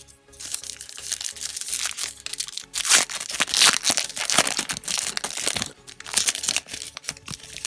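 A trading-card pack's wrapper crinkling and tearing as it is ripped open by hand: a dense run of crackles that is loudest about three seconds in.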